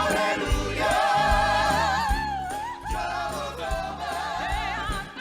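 Gospel singing: a lead voice with wavering runs and a long held note over a band with a steady bass beat.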